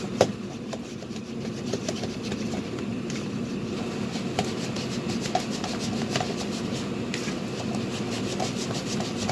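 Hands kneading donut dough in a plastic bowl: dough rubbing and squishing against the bowl with many small irregular clicks, and a sharp knock just after the start. A steady low background hum runs underneath.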